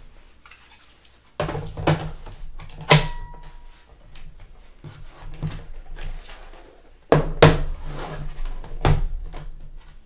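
Plastic knocks and clicks of a laptop being handled on a desk as its battery is seated, with one sharp click that rings briefly about three seconds in. A second run of knocks and thumps follows a few seconds later as the laptop is turned over and set down.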